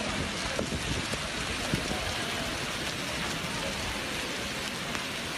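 Heavy rain mixed with hail falling on an asphalt road: a dense, steady hiss with scattered small ticks of hailstones striking.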